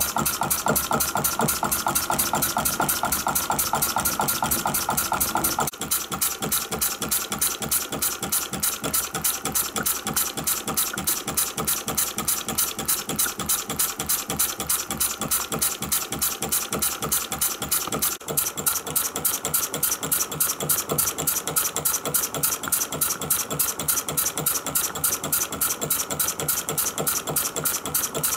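Home-built single-cylinder horizontal true-diesel model engine (20 mm bore, 40 mm stroke, burning a kerosene and lamp-oil mix) running steadily under its own power after a cold start by cranking handle, firing in a rapid, even beat with its injection timing just advanced.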